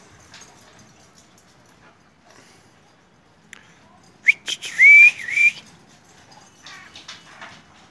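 A person whistling a short, loud call about four seconds in, the pitch rising and dipping a few times over about a second.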